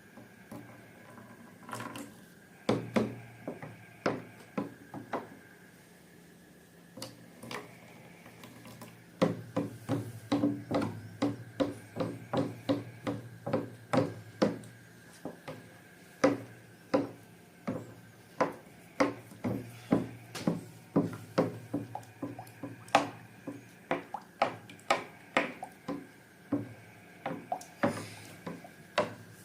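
Slime being worked with a utensil in a bowl: a run of short, sharp clicks and sticky taps, a few scattered at first, then about two or three a second.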